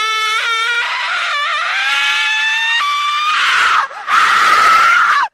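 High-pitched scream-like shrieking in several long held tones that shift and jump in pitch, with brief breaks, cutting off abruptly at the end.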